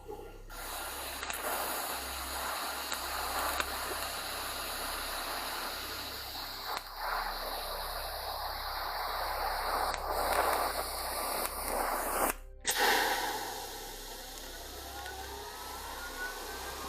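Welder laying a continuous full weld bead on steel drawer parts, a steady crackling hiss. It breaks off about twelve seconds in, gives a short burst after a brief gap, then drops to a quieter hiss.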